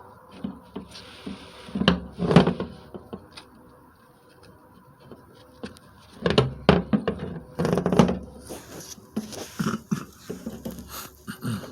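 Scattered knocks and clanks of metal transmission parts and tools being handled during a rebuild: a couple of sharp knocks about two seconds in, then a busier run of clattering from about six to eight seconds in.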